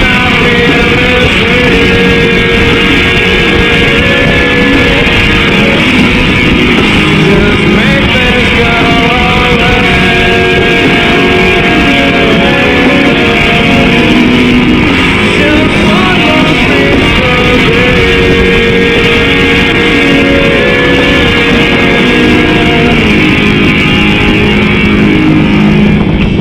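Background music: a rock song with guitar playing a stretch without lyrics, loud and steady.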